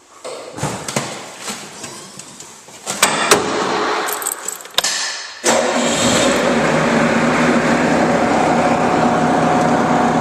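Clicks, knocks and a jangle of keys, then about five and a half seconds in the Bobcat 763 skid steer's water-cooled Kubota four-cylinder diesel starts and settles into a steady run.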